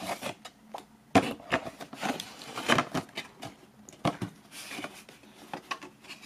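Hands handling a thin cardboard box and printed cards: irregular rustles, scrapes and light knocks as items are worked out of the box.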